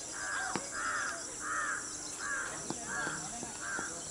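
A bird calling repeatedly: about six evenly spaced calls, a little under one a second.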